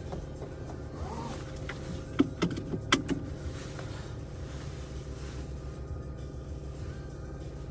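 Car engine idling while it warms up from cold, heard from inside the cabin as a steady low hum. A few sharp clicks and knocks come between two and three seconds in.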